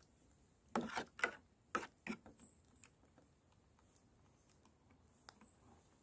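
Metal spoon clinking and scraping against an aluminium British Army mess tin as the food in it is stirred: a quick run of five or six sharp clinks in the first two seconds, then a few faint ticks.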